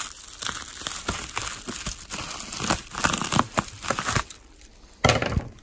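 Scissors cutting through a double layer of bubble wrap, the plastic crinkling and crackling irregularly. It goes quieter about four seconds in, then a louder crinkle comes just after five seconds.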